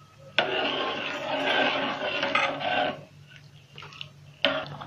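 Steel spoon stirring rice simmering in milk, scraping and rasping against the bottom of a metal pot for about two and a half seconds, then starting again near the end.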